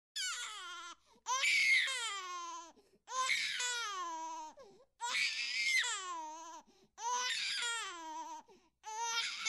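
Newborn baby crying: a run of about six high-pitched wails, each about a second and a half long and falling in pitch at the end, with short pauses between.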